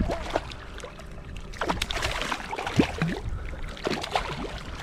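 Water splashing and gurgling at the side of a kayak, a hooked African pompano thrashing at the surface, in irregular short plops and splashes.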